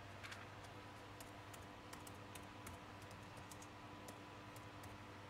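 Faint, irregular clicking of typing on a keyboard, a few keystrokes a second, over a steady low hum.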